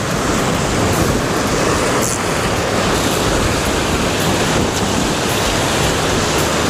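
Sea surf washing over shoreline rocks: a loud, steady rushing noise.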